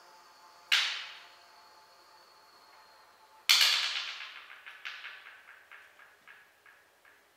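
Percussion strokes in a contemporary chamber piece. A sharp crack leaves a thin high ringing tone. A few seconds later a louder crack is followed by a run of quicker strokes that fade away.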